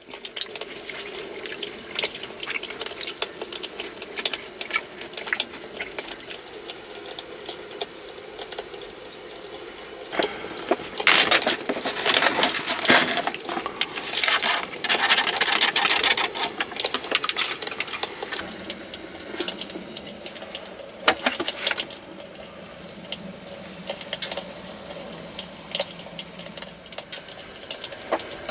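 Meal-preparation sounds: rapid small clicks and clatter of utensils and dishes over a steady hiss, with a louder hissing stretch in the middle and a low steady hum underneath.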